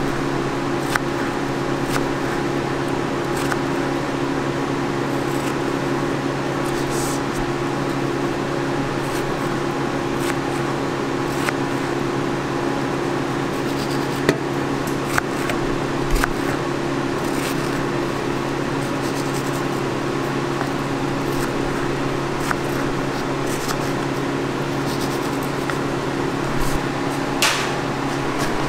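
Steady machine hum of kitchen equipment, like a fan or cooling unit, with a few scattered light clicks of a knife meeting a plastic cutting board as strawberries are sliced.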